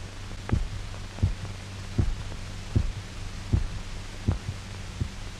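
A dog's heartbeat made audible: single low thumps at a steady pace of about 80 a minute, over a steady low hum. The heart is beating on its own after the artificial circulation machine is disconnected.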